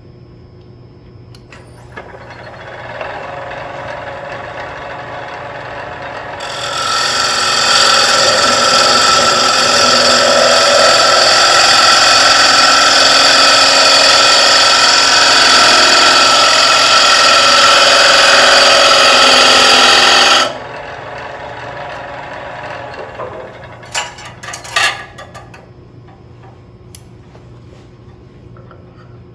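A 3/8-inch bowl gouge cutting the inside of a spinning wooden bowl blank on a lathe, hollowing the interior in steps: a lighter cut from about two seconds in, then a loud, steady cut with several steady tones in it from about six seconds in, stopping abruptly about twenty seconds in. A couple of sharp clicks follow a few seconds later.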